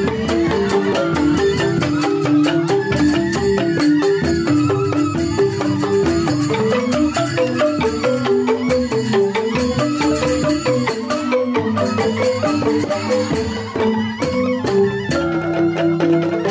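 Balinese joged bumbung gamelan: bamboo grantang xylophones play fast, interlocking repeating figures over percussion.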